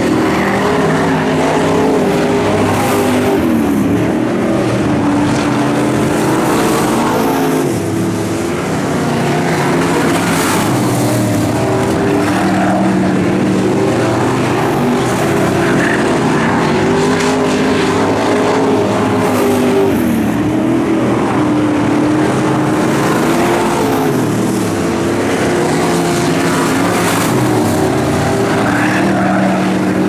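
Dirt modified race car's V8 engine running hot laps, loud and continuous, its pitch rising down the straights and dropping as the car lifts for the turns, over and over.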